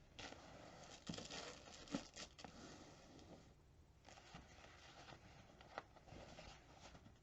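Faint rustling and crinkling of a wallscroll's packaging being handled and opened, with small sharp crackles, pausing briefly about three and a half seconds in.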